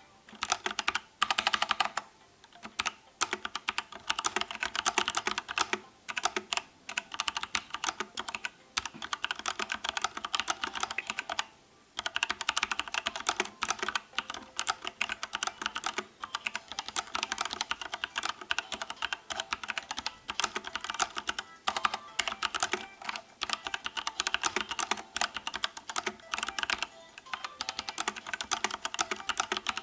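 Fast typing on a mechanical keyboard with Outemu Brown tactile switches: rapid key clicks and bottoming-out clacks in a steady stream, broken by a few short pauses.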